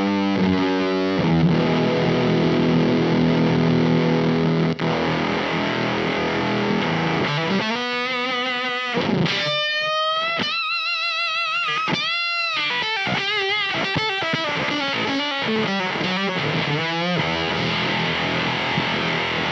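Electric guitar played through a Teisco fuzz pedal: heavily fuzzed, sustained chords, with high held lead notes shaken by wide vibrato about halfway through.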